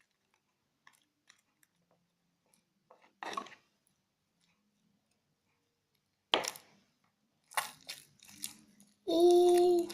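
Homemade marshmallow slime, still a little sticky, being worked by hand: a few short, separate crackly noises. Near the end comes a short hummed voice, the loudest sound.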